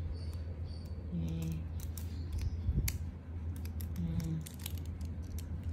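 Scattered light clicks and taps of a pair of scissors and a paper name label being handled and fitted, over a steady low hum.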